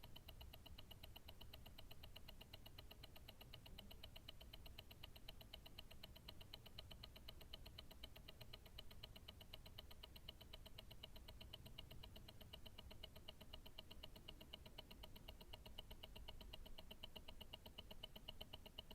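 Invicta Grand Octane's mechanical tourbillon movement ticking steadily, heard through a stethoscope: a rapid, even run of faint ticks, several a second, over a low rumble.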